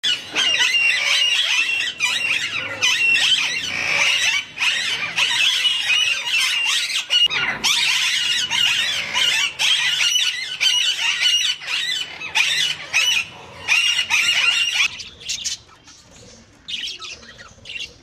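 A large flock of Alexandrine parakeets squawking over one another in a dense, high-pitched chorus. About fifteen seconds in, it drops to a few sparser, quieter calls.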